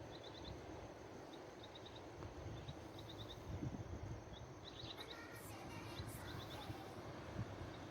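Faint outdoor ambience: a bird's short high chirps in quick runs of three or four, repeating, over a low steady rumble.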